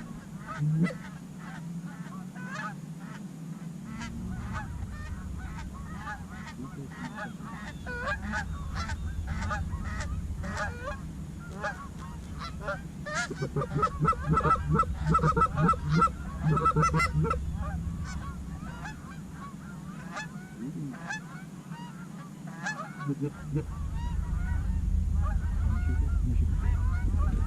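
Geese honking: a long run of short, repeated honks, thickest about halfway through, over a low rumble that comes and goes.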